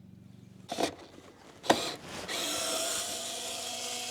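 Two sharp knocks, then a cordless drill-driver starts a little past halfway and runs steadily, driving in a radiator-guard mounting screw.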